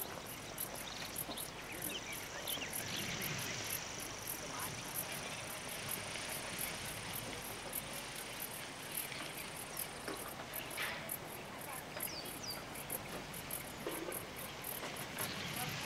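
Crickets chirping steadily in a regular high pulse, about three chirps a second, over a faint outdoor background hiss.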